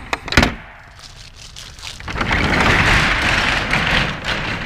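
Whiting roll-up door on a truck box, opened with a couple of sharp clunks from its latch near the start, then rolled up overhead with a long rattling rumble from about two seconds in.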